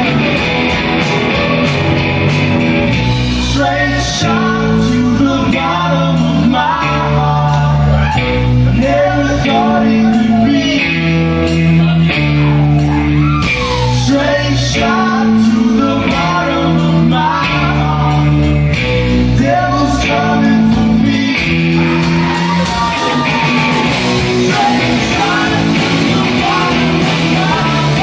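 Rock band playing live: distorted electric guitar, bass guitar stepping through notes and drums with a steady cymbal beat, with a man singing over it.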